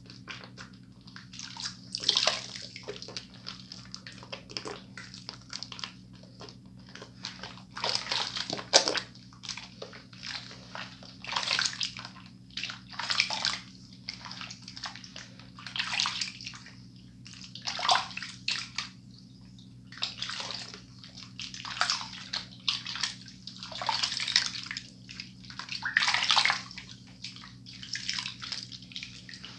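Soap-lathered hands being rinsed under a running bathroom-sink tap, splashing and rubbing in irregular bursts every second or two. A steady low hum lies underneath.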